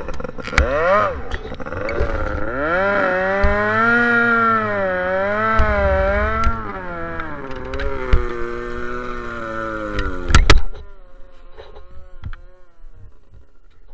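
Small outboard engine on a wooden racing boat running hard, its pitch wavering up and down about once a second. About ten seconds in there is a loud thump, and the engine then drops to a much quieter, lower run.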